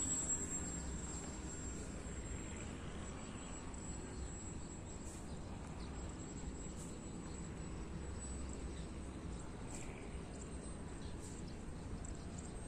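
Steady high-pitched insect drone over a low wind rumble on the microphone. The electric motor of a passing RC plane fades away in the first half-second.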